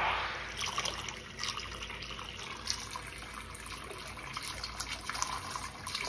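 Hot tap running into a bathroom basin, water splashing steadily, loudest as it starts. The hot water is flowing freely again now that the mixer shower, whose valve was passing cold into the hot, has been disconnected.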